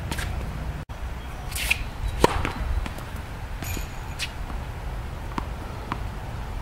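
Tennis serve: a racket swishes through the air and strikes the ball with a sharp pop about two seconds in. A few faint ticks follow later.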